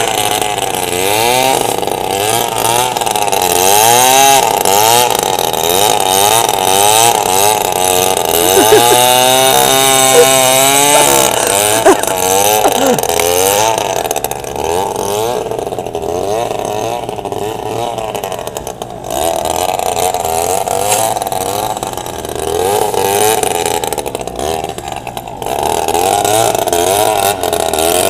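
Two-stroke gas string trimmer with a homemade straight-pipe exhaust, running loud and being revved up and down over and over as it clears snow, its pitch rising and falling about once a second.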